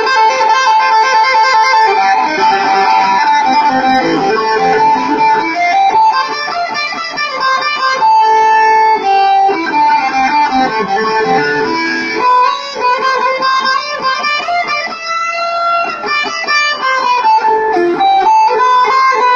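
Guitar playing a lead melody of held notes that slide and bend up and down in pitch, as a sound check.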